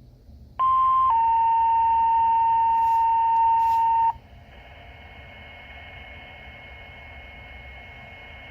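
Two-tone sequential paging tone over a fire department dispatch radio channel, alerting a station: a short higher tone for about half a second, then a slightly lower tone held for about three seconds that cuts off sharply. Steady radio hiss follows.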